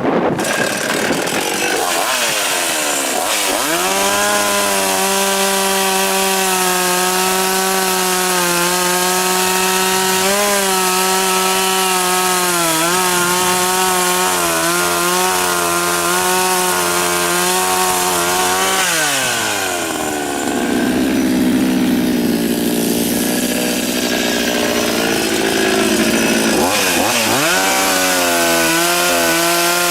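52cc two-stroke chainsaw with a 20-inch bar cutting through willow logs. It revs up a couple of seconds in and holds high revs with small dips under load. The revs drop away about nineteen seconds in, then rise again near the end.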